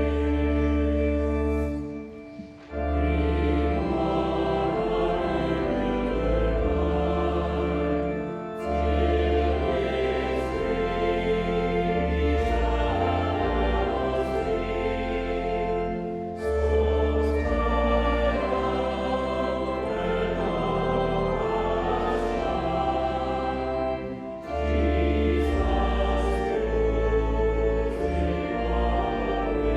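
Choir singing sacred music over a deep sustained bass, in long held phrases with short breaks roughly every six to eight seconds.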